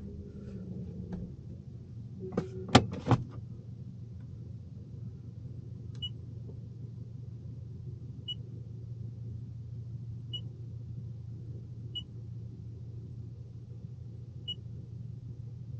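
Car engine idling with a steady low hum inside the cabin. A few sharp clicks come close together about two and a half to three seconds in, then six short high beeps at uneven gaps of roughly two seconds, the car navigation's touchscreen key tones as a destination is entered.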